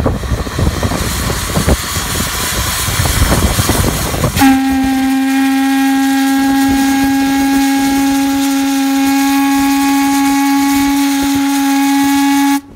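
The steam whistle of the paddle steamer Piemonte blowing one long steady blast of about eight seconds, which starts about four seconds in and cuts off sharply. Before the blast there is a steady rushing noise.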